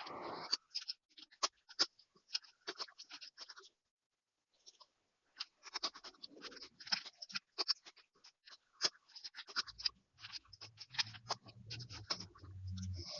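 A cat crunching dry food, a run of quick, irregular crisp crunches with a brief pause about four seconds in.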